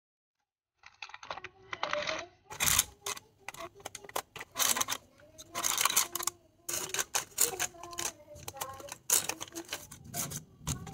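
Wooden chopsticks clicking and scraping against bread rolls and the basket as the rolls are turned over in an air fryer lined with crinkling parchment paper. It starts about a second in, as a fast, irregular run of sharp clicks and crackles.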